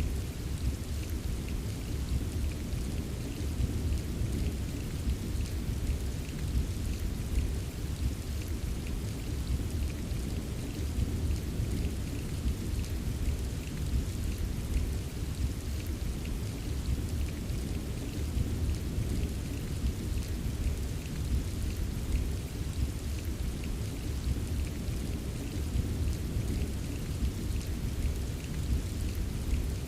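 Rain ambience: steady, even rainfall with a constant low rumble beneath it and a faint patter of drops on top.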